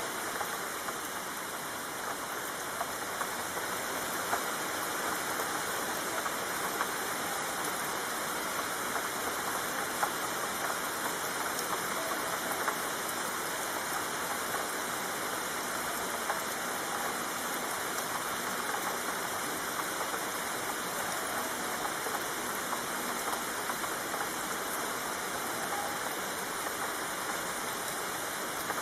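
Steady rainfall: an even hiss of rain with scattered sharper drop ticks.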